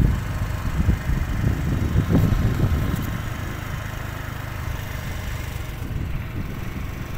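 Small automatic motor scooter running as it is ridden slowly, a steady low rumble.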